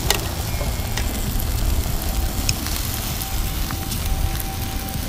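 Pork belly sizzling on a grill grate, with scattered sharp pops and crackles from the cooking fat, over a low rumble of wind on the microphone.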